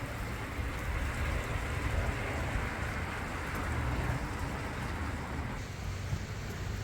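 Heavy rain falling steadily, a thick hiss of large drops with a low rumble underneath. The hiss eases slightly about five and a half seconds in.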